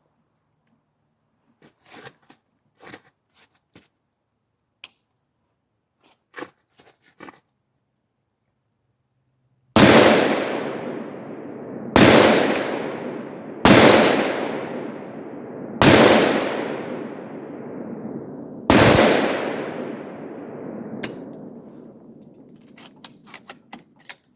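A few light clicks, then an AR-10 semi-automatic rifle in .308 fires five shots in quick succession, about two to three seconds apart. Each shot is a loud crack with a long echo dying away.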